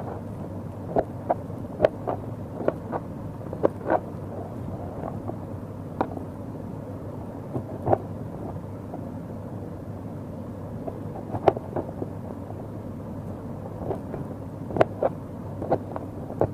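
Kitchen knife cutting ridge gourd into chunks on a plastic chopping board: sharp taps of the blade striking the board at an uneven pace, sometimes two close together, sometimes several seconds apart, over a steady background hiss.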